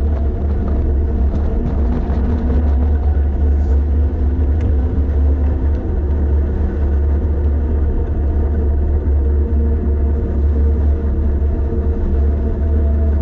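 Wind buffeting the microphone of a camera riding on a bicycle going downhill: a loud, steady low rumble, with a faint steady hum above it.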